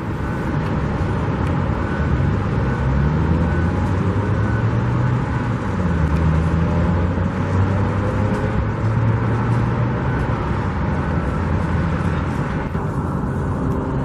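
A motor vehicle engine running close by, its pitch rising and falling a few times over a steady noisy rumble.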